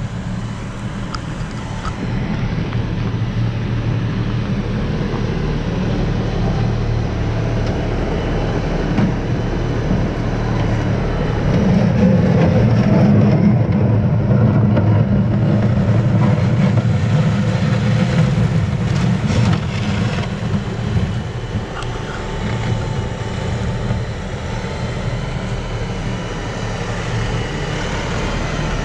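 LS compact tractor's diesel engine running steadily while it back-blades snow, its front loader bucket dragging over packed snow and ice. The engine grows louder about halfway through as the tractor comes close, then eases off.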